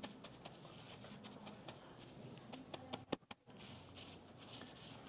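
Faint rustling of a tissue wiped over a wet smartphone, with scattered light clicks and taps, two sharper ones a little after three seconds in.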